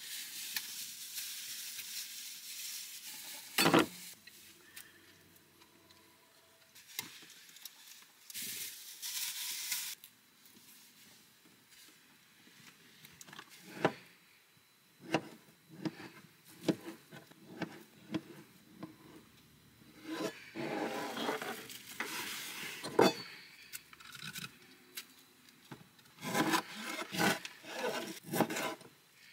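Kitchen knife cutting an avocado and a tomato on a cutting board: scattered sharp knocks of the blade meeting the board, coming in a quicker run near the end, between quieter stretches of handling noise.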